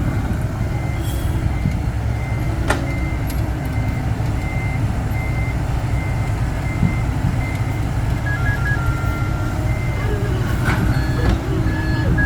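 A truck's reversing alarm beeps about twice a second over the steady running of a heavy vehicle's engine. A second, slightly lower beeping joins near the end, and there is one sharp knock about three seconds in.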